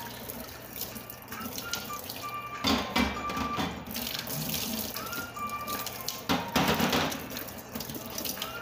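Kitchen tap running into metal cookware as it is rinsed and washed in the sink, with louder splashing bursts about three seconds in and again around six seconds. A faint short tune repeats in the background.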